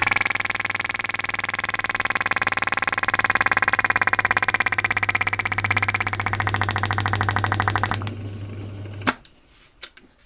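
Electric motor humming while it belt-drives a rotary HVAC compressor, which runs with a fast, even pulsing as it pulls a vacuum on a plastic soda bottle. The running fades about eight seconds in and stops about a second later, followed by a couple of sharp clicks.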